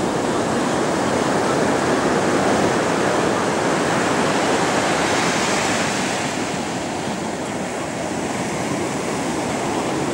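Ocean surf breaking and washing up a sandy beach: a steady rushing of waves that eases slightly about six seconds in.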